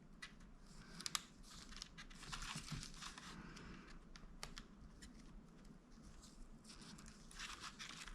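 Faint rustling and small scattered clicks of a laptop keyboard and its ribbon cable being handled and reconnected.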